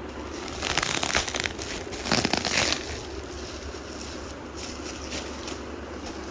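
Product packaging being opened by hand: two loud bursts of crinkling and tearing in the first three seconds, then fainter rustling.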